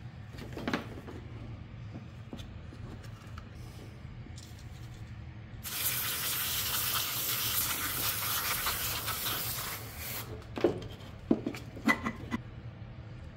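Aerosol can of electronic contact cleaner sprayed in one continuous hiss of about four and a half seconds, followed by a few sharp knocks as the can and parts are handled.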